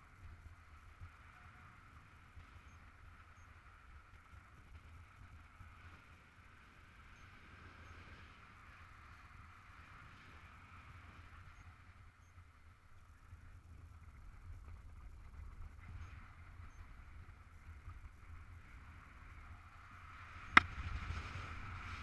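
Steady, muffled rush of wind past a paraglider pilot in flight, growing a little stronger in the second half, with one sharp click near the end.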